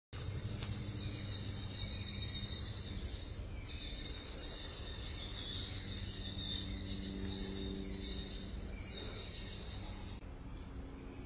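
Dense insect chorus in forest undergrowth, a steady high buzzing that fills the air; about ten seconds in it thins to a single steady high whine.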